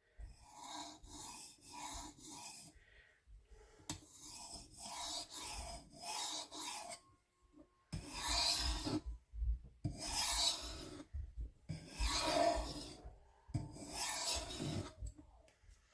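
Steel knife blade stroked across a diamond sharpening plate, a rasping scrape with each pass. Short quick strokes at first, then slower, longer and louder strokes of about a second each from about halfway on.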